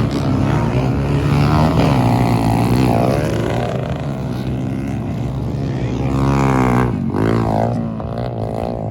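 Off-road vehicle engine running hard, its pitch rising and falling as it revs, with a sharp climb and drop in revs about six to seven seconds in.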